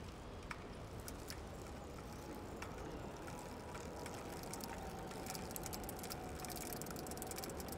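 Bicycle rolling with its freewheel ratchet ticking, the clicks few at first and coming fast and dense in the second half as it coasts.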